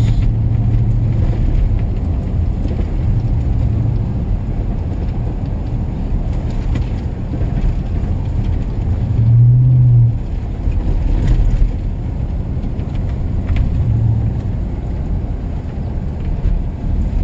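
Dodge Ram Rumble Bee pickup heard from inside the cab while driving: a steady low drone from its 5.7 L Hemi V8 with tyre rumble on a narrow paved road. The engine note swells briefly about nine and a half seconds in.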